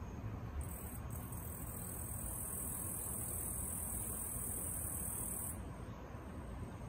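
An insect calling: a steady, high-pitched continuous note that starts about half a second in, breaks off briefly, then stops abruptly near the end. A low outdoor background rumble runs beneath it.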